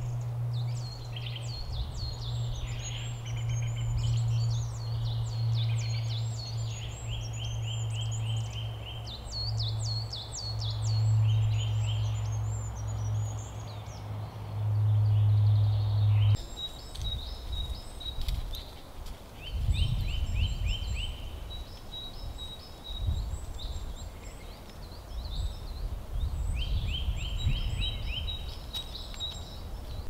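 Several songbirds singing and calling in a conifer forest, many overlapping short chirps and trills. Under the first half a low steady rumble runs and then stops abruptly about halfway through. After that the birdsong carries on, one bird repeating a short high note, over an uneven low rumble.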